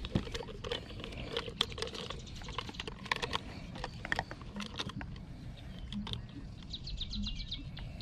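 Light clicking and clattering of a fishing lip grip and a digital hanging scale being handled and hooked together to weigh a bass. A quick run of high ticks comes near the end.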